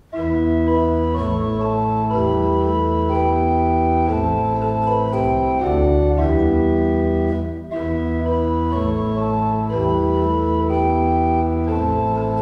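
Church organ playing slow, sustained chords, coming in right as the speech ends, with a brief break between chords a little past halfway.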